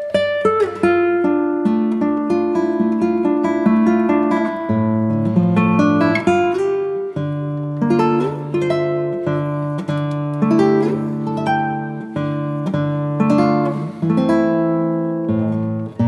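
Background music: acoustic guitar played with plucked and strummed notes.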